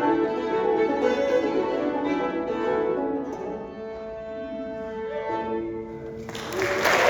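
Two fiddles and a banjo playing the last phrases of an old-time fiddle tune, thinning to a few long held notes, then applause breaking out about six seconds in.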